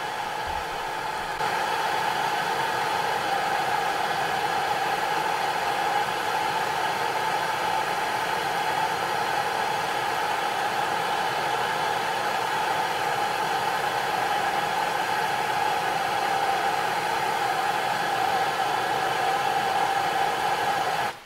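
Hand-held gas torch flame and the steam jets of a homemade copper aeolipile hissing steadily while the aeolipile spins a set of RC helicopter rotors. The sound gets a little louder about a second and a half in and cuts off suddenly near the end.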